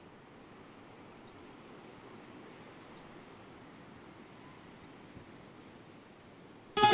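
A bird's short, high chirp, repeated four times about two seconds apart over faint hiss. Music with plucked strings comes in suddenly at the very end.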